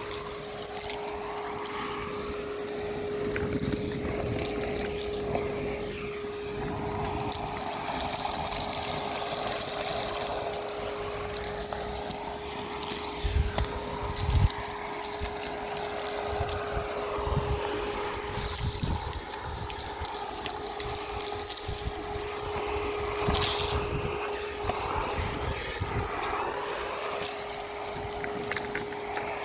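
Miele Complete C2 Tango EcoLine canister vacuum cleaner running with a steady motor hum, its airflow rising and falling as the nozzle is moved, with scattered crackles and clicks of grit being sucked up.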